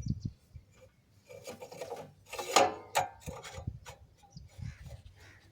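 Irregular scraping and rubbing, with a few short knocks; the loudest scrape comes about two and a half seconds in.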